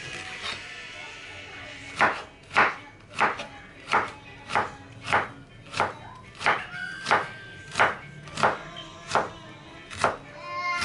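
Chef's knife chopping an onion on a wooden cutting board: a steady run of sharp knife-on-board strikes, about one and a half a second, starting about two seconds in.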